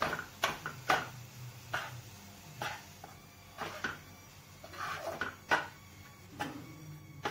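A spatula scraping and knocking against a non-stick kadhai as gram flour is stirred and dry-roasted in oil on low heat. The strokes come irregularly, about once a second and sometimes closer together.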